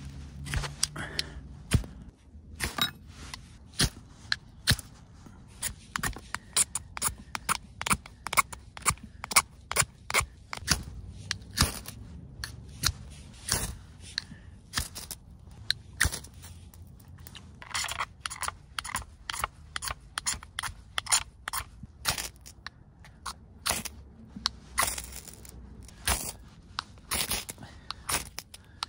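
Steel knife blade scraping in many short, quick rasping strokes, with brief pauses: shaving tinder and then scraping a ferrocerium rod to throw sparks onto a tinder bundle to light a fire.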